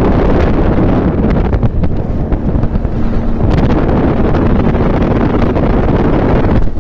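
Wind buffeting the microphone of a camera held out of a moving vehicle, a loud steady rush, with the vehicle's engine humming underneath.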